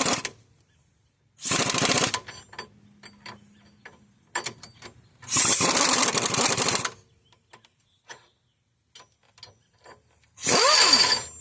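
Impact wrench hammering in three bursts, the longest under two seconds, running the bolts of a wheel bearing puller on a car's front hub, with light metallic clicks and taps between the bursts.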